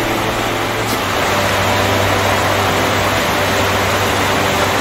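Heavy downpour on the shop roof: a loud, steady rush of rain noise, with a steady low hum beneath it.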